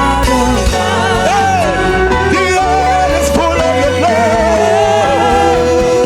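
Gospel worship music: a full band with steady bass and sustained chords, with a melodic line gliding and wavering over it, like wordless vocal ad-libs.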